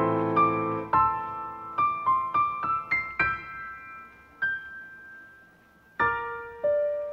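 Background music: a slow, gentle solo piano melody of single notes that ring and fade, with a fuller chord struck about six seconds in.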